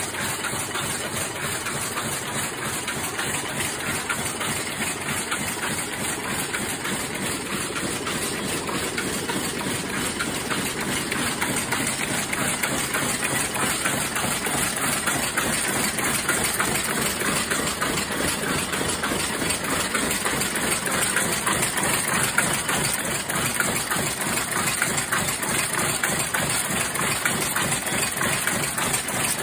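Swiss-made power looms weaving cloth, running with a fast, steady mechanical clatter.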